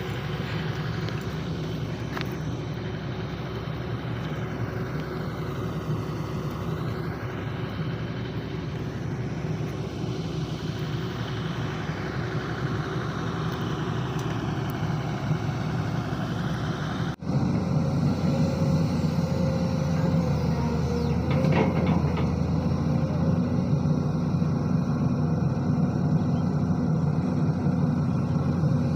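Heavy diesel machinery running steadily: a SANY SY215C excavator working while it loads a dump truck. An abrupt break about two-thirds of the way in, after which the engine sound is louder.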